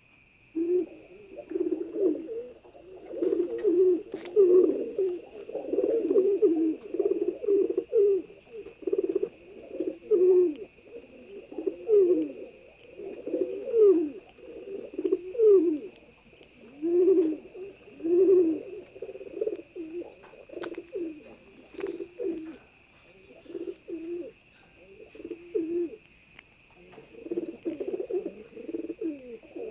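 Domestic pigeons cooing over and over, low gliding coos following one another with short gaps, over a faint steady high whine.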